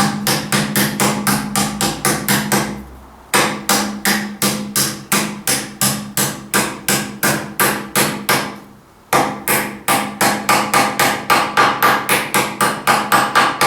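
Hand hammer striking in a steady run of blows, about three a second, with two short pauses, driving a tight-fitting bushing the rest of the way into place.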